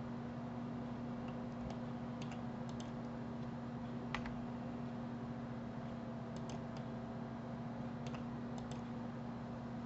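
Scattered clicks of a computer mouse and keyboard, a few at a time, with one louder click about four seconds in, over a steady low hum.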